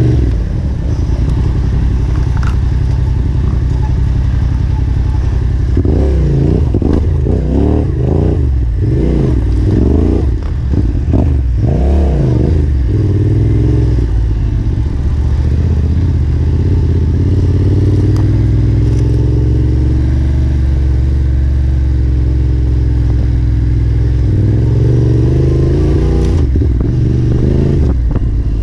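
Yamaha Ténéré 700's parallel-twin engine working a rough trail, the throttle opened and shut in quick rises and falls of revs, then held steadier, with revs climbing again near the end. Occasional knocks and clatter from the bike over rough ground.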